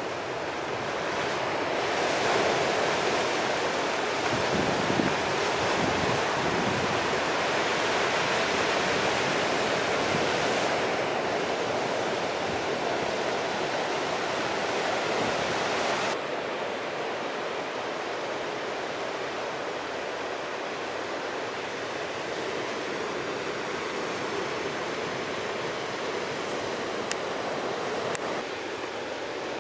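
Ocean surf: a steady rush of breaking waves, louder over the first half, then dropping abruptly to a lower, steadier wash about halfway through.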